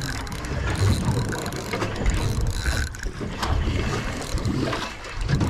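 Spinning reel being cranked to wind in a hooked fish, its gears whirring and clicking, over wind rumbling on the microphone.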